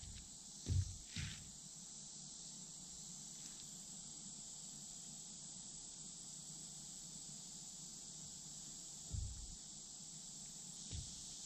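Steady high-pitched insect chorus, with a few soft low thumps about a second in and again near the end.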